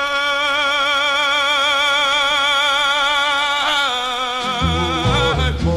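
1960s soul vocal recording: a singer holds one long high note with a wide vibrato for several seconds, then the melody moves and the full band comes in with a heavy bass line near the end.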